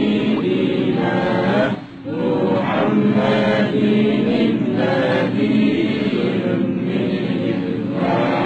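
A group of voices chanting together in long sung phrases, with a short break about two seconds in.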